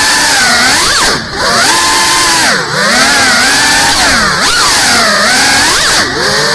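GEPRC CineLog 35 cinewhoop's brushless motors and ducted propellers whining, the pitch rising and falling with throttle. Four times the whine briefly drops away as the throttle is cut for flips and rolls.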